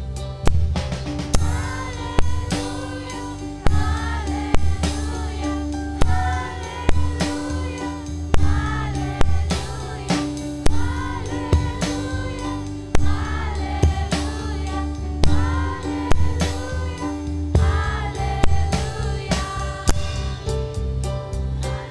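A mixed group of students singing an upbeat song through a PA system over amplified music with a steady bass and drum beat.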